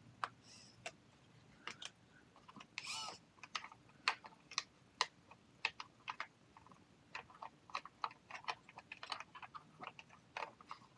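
Irregular small clicks, taps and brief scrapes of hard plastic and metal parts being handled and pressed together as an aluminum steering rack is worked into an RC truck's chassis.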